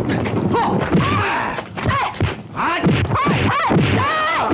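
Fight-scene yells and grunts from kung fu fighters, a quick series of short shouts that rise and fall in pitch, mixed with the thuds of blows landing.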